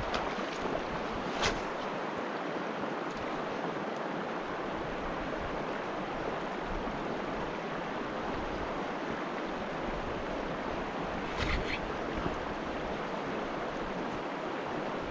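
Steady rushing of a fast mountain river's current, with two brief clicks, one about a second and a half in and another about ten seconds later.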